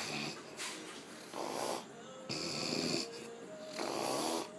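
A woman snoring heavily, one rasping snore about every second.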